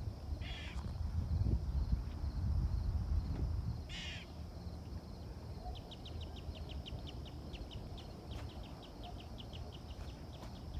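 A crow cawing twice, harsh calls about half a second and four seconds in, over a low wind rumble on the microphone. From about six seconds in comes a fast run of short high ticks, about four a second.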